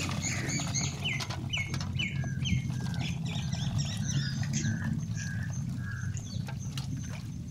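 Birds chirping and calling over and over, with faint knocks and patter of boiled peanuts in their shells poured from a pot into an aluminium colander, over a steady low hum.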